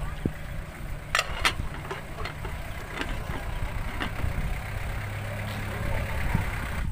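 An engine idling steadily with a low hum, and two sharp clinks about a second in as a lidded aluminium cooking pot is lifted by its wire handle.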